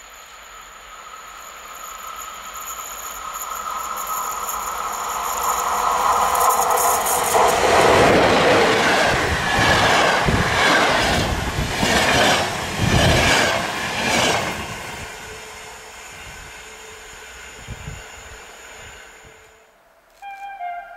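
Electric locomotive-hauled passenger train approaching and passing at speed. The rush swells over several seconds, then a quick run of rhythmic wheel clatter comes as the coaches go by, and it fades away as the train recedes.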